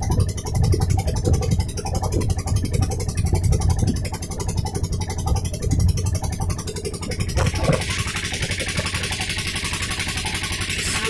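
Wooden river boat's engine running steadily under way, with water washing against the hull. About seven seconds in a steady hiss joins it and the engine's beat becomes more even.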